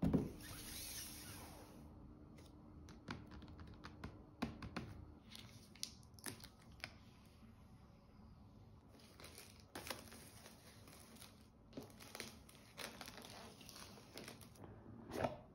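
Clear plastic shrink-wrap on a cardboard laptop box being torn open by its pull tab and peeled off, crinkling, with scattered sharp clicks and taps of fingers on the box. The loudest crackles come at the very start and about a second before the end.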